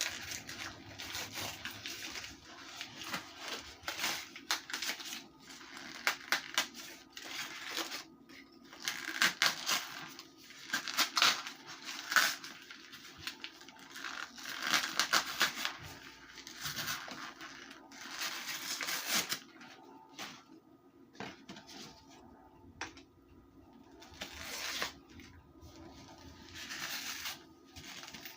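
Wrapping being unwrapped and torn open by hand, irregular crinkling, rustling and small clicks coming in clusters, over a faint steady hum.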